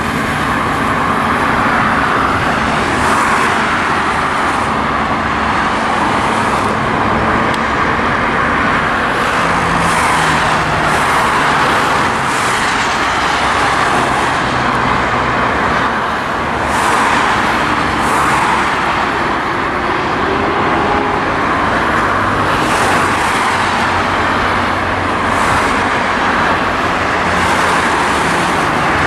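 Steady roar of road traffic, with passing vehicles swelling in the hiss every few seconds.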